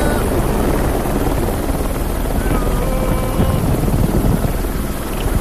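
Tour helicopter's rotor and engine noise heard from on board, a loud, steady, dense rumble.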